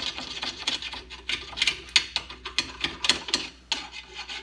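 Screwdriver scraping and scratching inside the steel eye of a golf cart's leaf spring in quick, uneven strokes, clearing out rust and built-up junk left where the bushings were worn away.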